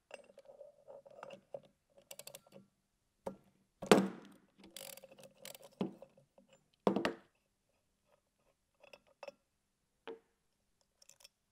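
Scattered metal clicks, clinks and knocks of a hand tool and loose parts while the impeller nut and lock knob are unscrewed and taken off a centrifugal pump's impeller. A few louder knocks come about four, six and seven seconds in.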